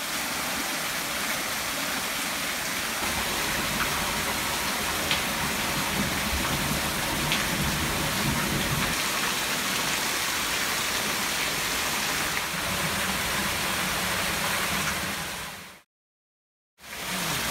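Heavy rain pouring down in a steady hiss. It breaks off for about a second near the end, then comes back.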